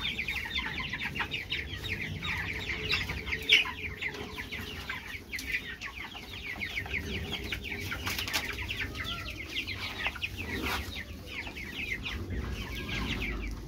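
A flock of young broiler chicks peeping continuously, many short falling chirps overlapping. A single sharp knock stands out about three and a half seconds in.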